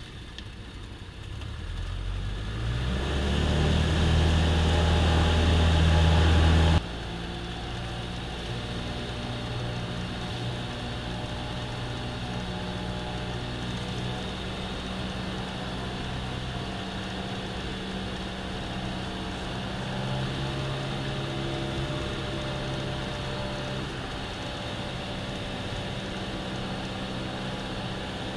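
Cessna 172M's four-cylinder Lycoming engine and propeller, heard inside the cockpit, coming up to full power for takeoff over the first few seconds. About seven seconds in the sound drops abruptly to a lower level, then holds a steady drone through the climb.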